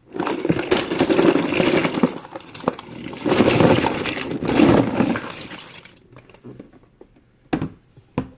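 A heap of small fidget toys tipped out and clattering against each other for about six seconds, swelling twice, then a few single clicks as pieces settle.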